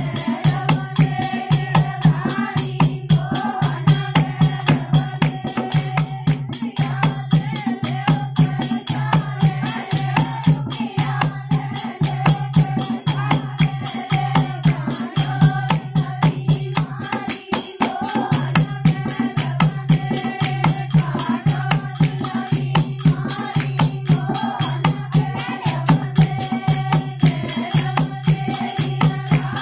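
Group of women singing a Dehati folk dance song in unison over a steady dholak hand-drum beat, with jingling metal percussion. The drum drops out for a moment a little past halfway, then picks up again.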